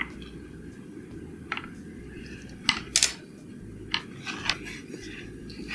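Light metallic clicks and taps of small hand tools against a laptop motherboard and a newly fitted HDMI port while its legs are being soldered, with a loud pair of clicks near the middle. A steady low hum runs underneath.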